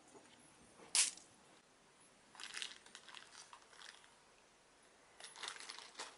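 A party snapper (a throw-down 'pop-pop' snap) goes off once with a single sharp crack about a second in. Then a clear plastic bag crinkles twice as small fireworks are handled in it.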